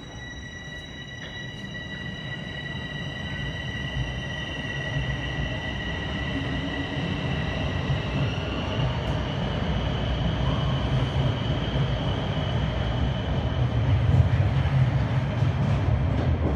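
Toronto Rocket subway train pulling out of the station: a steady high electric motor whine that rises in pitch about eight seconds in, over a low rumble of wheels on rail that grows steadily louder as the train gathers speed.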